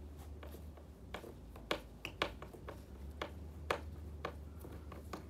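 Scattered light clicks and taps, about seven, from hands handling a plastic snowboard binding and its ankle-strap hardware.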